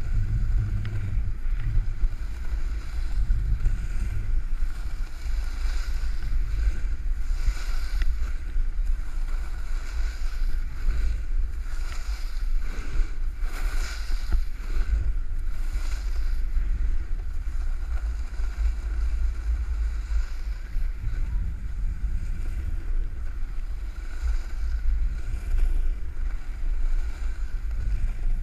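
Wind buffeting the microphone in a steady low rumble, over a broad hiss of moving water.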